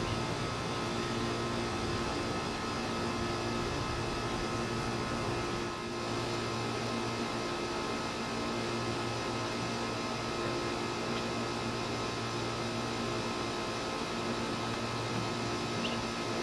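A steady machine hum with hiss: a constant drone holding several steady tones, unchanging throughout.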